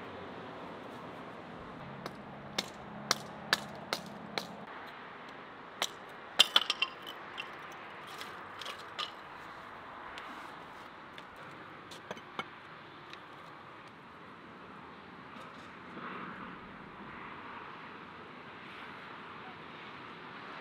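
Hatchet chopping small sticks of kindling: a string of sharp knocks at irregular intervals, with a quick flurry about six seconds in, thinning out and stopping after about twelve seconds.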